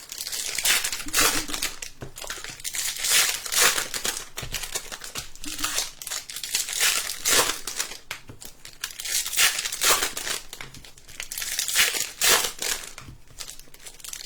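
Trading-card pack wrappers being torn open and crinkled by hand: a quick, uneven run of rips and crackles.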